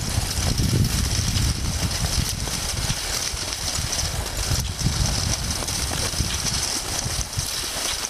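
Wind rumbling and buffeting on the microphone, unsteady and loudest low down, over a steady hiss of skis gliding on snow.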